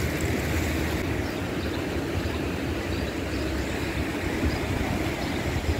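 Steady beach ambience: wind buffeting the microphone as a low rumble, under an even rushing hiss of surf.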